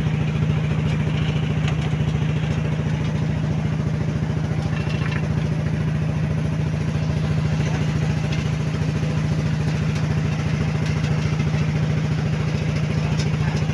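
Boat engine running steadily at an even pitch, with no change in speed.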